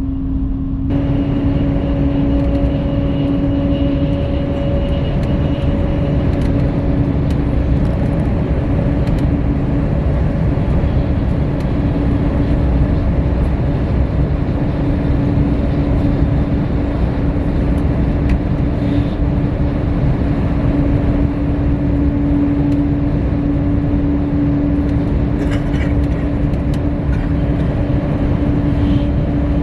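Cabin noise of the Al Boraq high-speed train running at speed: a dense, steady rumble with a steady hum over it.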